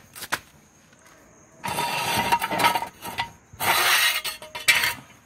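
Steel jack stand being released and taken down: a few sharp metal clicks, then two rattling, scraping metal bursts of about a second each.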